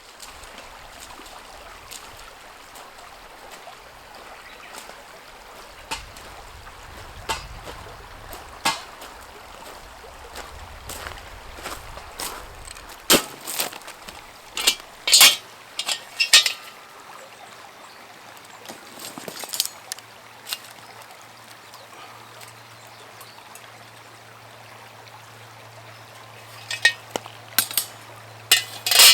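Steady running or trickling water, with scattered sharp clicks and knocks; the loudest knocks come in a cluster around the middle and again near the end.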